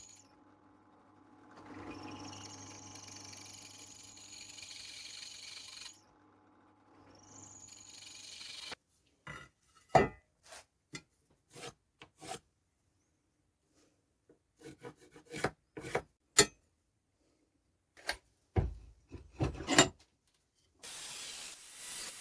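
Steady rubbing or scraping on the metal of a vise, in three stretches. It is followed by a run of sharp clicks and knocks as metal parts are handled.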